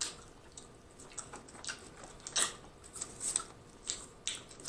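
A person chewing food close to the microphone: a series of short, irregular mouth clicks and smacks.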